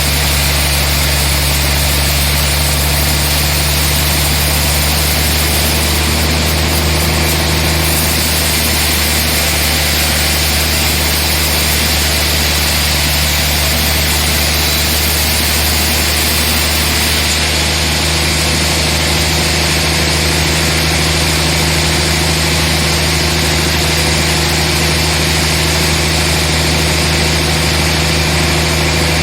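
Sawmill machinery running steadily: a constant low engine-like drone with a wide noisy hiss over it, unchanging throughout.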